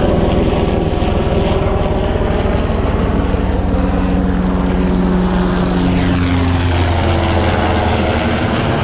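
Three helicopters flying in low, their rotors and engines loud and steady, the pitch shifting as they pass.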